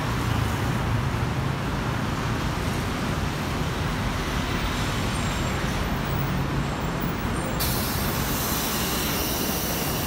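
A TransJakarta city bus's engine running low as the bus pulls up to the platform, then, about three-quarters of the way in, a sudden loud hiss of compressed air from the bus's pneumatic system that keeps going to the end.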